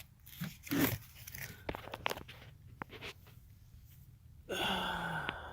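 Rustling, crinkling and light clicks from an old furnace air filter being handled. About four and a half seconds in comes a short held sound, about a second long, with a slightly falling pitch.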